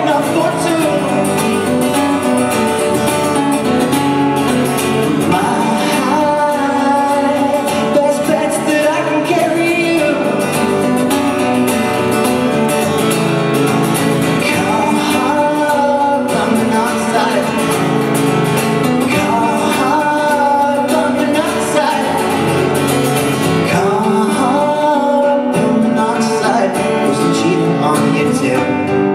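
Live folk-rock song: strummed acoustic guitar with a voice singing a sustained melody.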